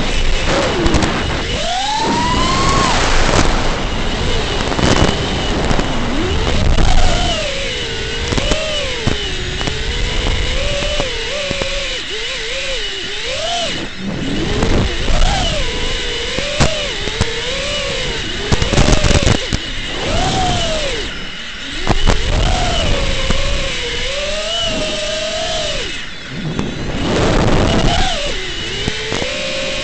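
FPV racing quadcopter's brushless motors and propellers whining, the pitch swooping up and down with each throttle change, over a rushing hiss and a steady high-pitched tone.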